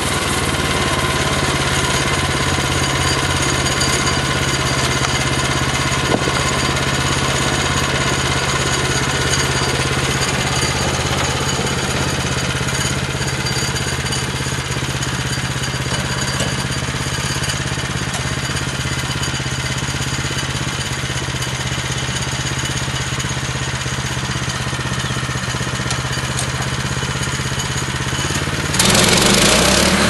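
The 9.5-horsepower Kohler engine of a Woodland Mills HM126 portable bandsaw mill running steadily at a low, idling pitch. About a second before the end it turns sharply louder and hissier, as it does when the mill is cutting.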